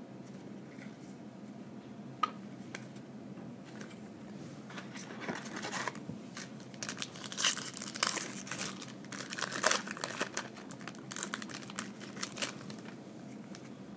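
A foil trading-card pack wrapper being torn open and crinkled by hand: a single click about two seconds in, then several seconds of crackling rustle and tearing that dies away near the end.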